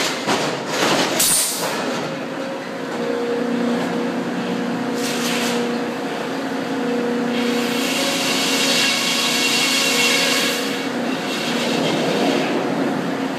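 Sawmill head rig running: the shotgun-fed log carriage travels back and forth on its track over a steady machinery hum. Clanks and clatter come in the first second or so, and a louder stretch of hissing noise comes in the middle.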